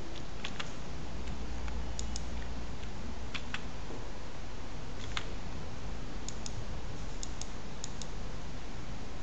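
Scattered clicks of a computer mouse, a dozen or so, several coming in quick pairs, over a steady hiss.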